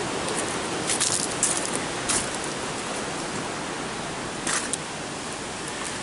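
Steady hiss of outdoor noise with a few short, light crackles about one to two seconds in and again past four seconds.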